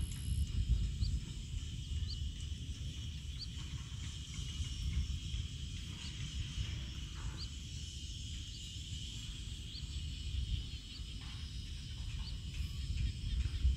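Rural field ambience: a steady high insect drone with a short high chirp repeating about once a second, over a low rumble.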